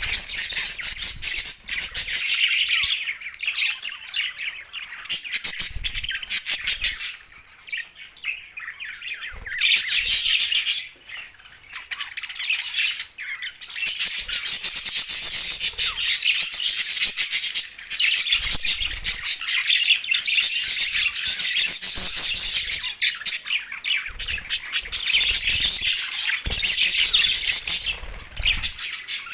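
Two male budgerigars chattering and chirping in a fast, near-continuous warble, with a couple of short pauses.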